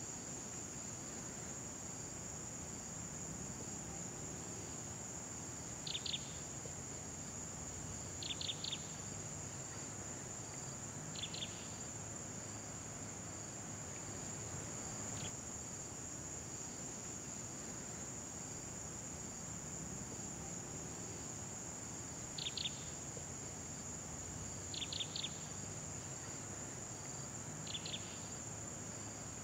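Steady high-pitched drone of insects, with a bird giving short clusters of two or three quick chirps every few seconds.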